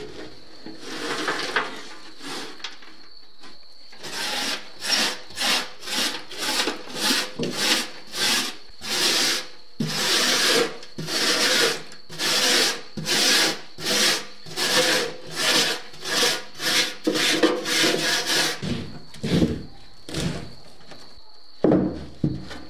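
A hand wire brush scrubbing rust and ash off the inside of a rusty steel smoker barrel, in back-and-forth strokes at about two a second that start a few seconds in and stop shortly before the end. A few knocks follow near the end.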